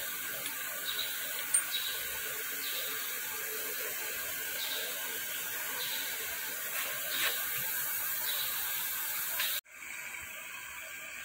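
Brass hex nuts handled on a steel bench, with light scattered clicks over a steady background. Near the end it cuts abruptly to a steady machine sound, a lathe running.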